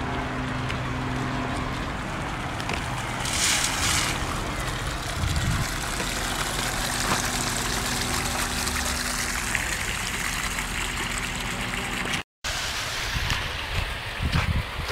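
Water trickling and gurgling over the steady low hum of an idling vehicle engine.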